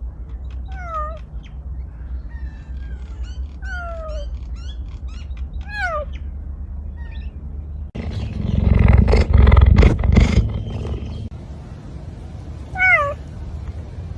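Cats meowing: short meows that slide down in pitch about one, four and six seconds in and again near the end, over a steady low hum. A louder, rough, noisy stretch runs from about eight to eleven seconds in.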